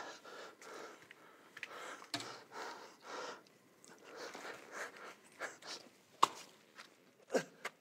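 Faint breathing and rustling as a man crawls into a small nylon dome tent, with a sharp click about six seconds in.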